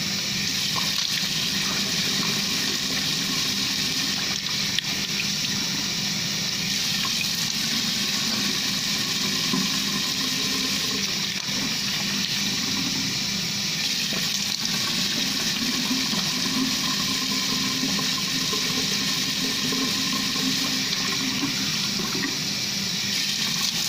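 Water running steadily from a tap into a sink as face wash is rinsed off the face with the hands.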